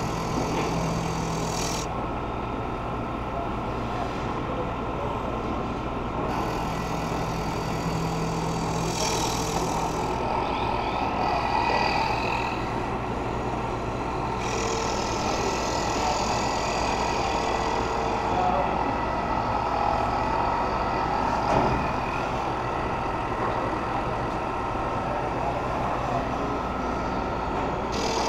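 TRAK K3 CNC knee mill's spindle running steadily while its end mill cuts a profile in a maple block, a constant machine hum under a higher cutting noise that rises and falls as the cutter moves through the wood.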